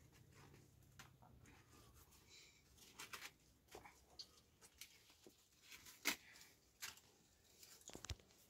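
Faint rustling and tearing of thin flatbread and a plastic bag as the bread is torn by hand, with scattered soft clicks, the sharpest about six seconds in.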